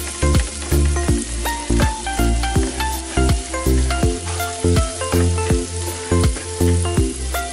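Chopped garlic, chillies and curry leaves sizzling in melted butter in a pan as a spatula stirs them. Background music with a steady beat and bass notes plays over it and is the loudest thing.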